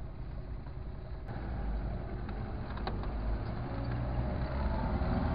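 Car engine running and tyre noise heard from inside the cabin while driving. The sound changes abruptly about a second in and gets slightly louder.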